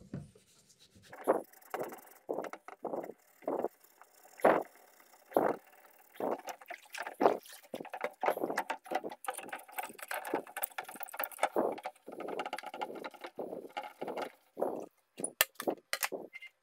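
A sponge scourer scrubbing a plastic computer case part in a sink of soapy water, with quick, irregular rubbing strokes and some splashing.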